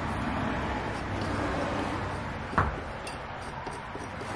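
A hoof pick working a horse's raised front hoof, with one sharp knock about two and a half seconds in over a steady background rush.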